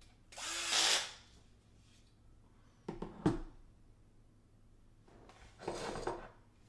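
Electric drill driving screws into the sheet-metal frame in two short runs, about a second each, with a couple of sharp knocks of metal parts being handled between them.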